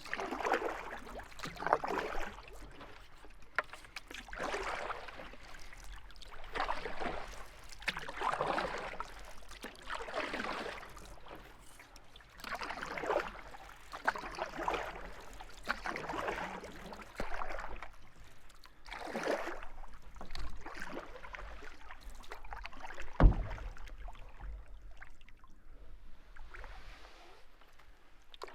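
Canoe paddle strokes: a water swish with each stroke, repeating about every one and a half to two seconds, with a single sharp knock about three-quarters of the way through.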